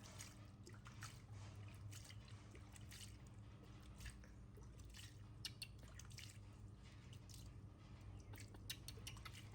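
Near silence: a low steady hum with scattered faint wet clicks and taps.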